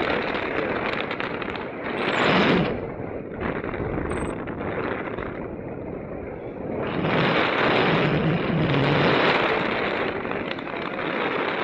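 Wind rushing over the microphone of a camera riding on a paraglider in flight, a steady rush that swells in gusts about two seconds in and again from about seven to ten seconds.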